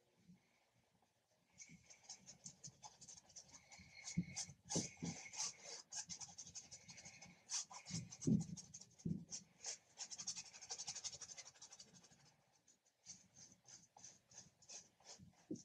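Paintbrush scrubbing acrylic paint onto canvas: quick, scratchy strokes in rapid runs that start about a second and a half in and pause briefly near the end, with a few dull thuds mixed in.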